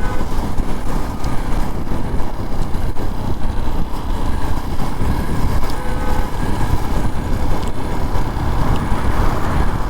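Steady riding noise from a moving motorcycle: wind buffeting a helmet-mounted microphone over the engine and road rumble.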